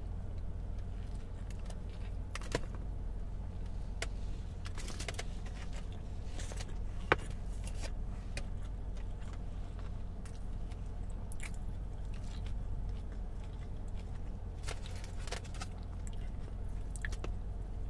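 Close-up chewing of a birria taco: scattered wet mouth clicks and smacks, with one sharper click about seven seconds in, over a steady low hum.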